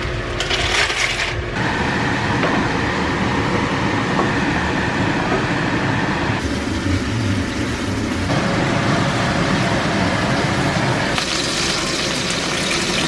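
Kitchen cooking noise that changes abruptly several times: a few sharp knife strokes on a cutting board at the start, then a steady rushing hiss of rigatoni cooking in a pan of water, and near the end a brighter sizzle of chicken thighs in a cast-iron grill pan.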